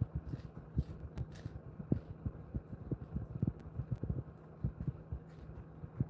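A dog chewing a treat: irregular, dull, low crunching bites, several a second, over a steady low hum.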